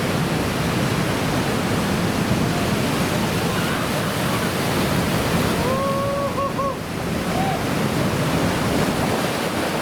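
Big typhoon-swell surf breaking and rushing in a steady, loud roar, with wind. A brief distant human call is heard about six seconds in.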